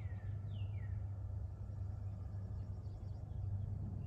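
A small bird calling with short downward-sliding notes, two in the first second, over a steady low rumble.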